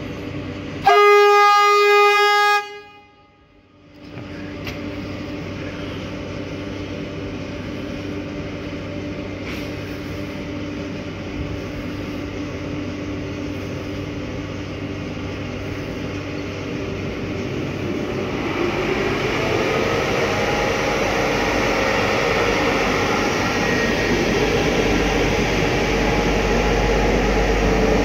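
Romanian CFR EA-class electric locomotive sounding one loud horn blast of about two seconds about a second in, as it starts away. After a brief dip it hums steadily, and over the last ten seconds its running noise grows louder, with a whine rising slowly in pitch as the train gathers speed.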